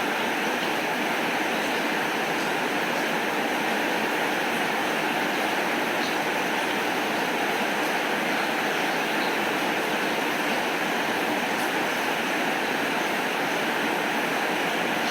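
Heavy rain falling steadily, an even hiss of rain with no thunder.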